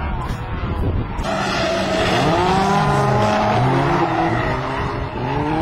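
Several rallycross cars racing, their engines revving up and down with pitches that rise and fall past one another. A hiss of skidding tyres joins in about a second in.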